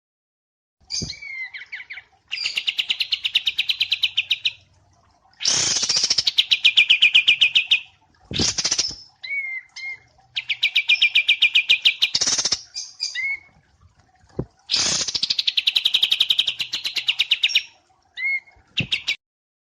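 Small songbirds singing, as in a wambi mini and kapas tembak song recording: four long, rapid trilled phrases of about two seconds each, separated by short whistled notes and sharp chips.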